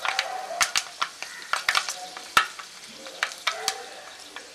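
Fenugreek seeds frying in hot coconut oil in a clay pot: the oil sizzles with irregular sharp crackles and pops, a few a second, as the seeds splutter.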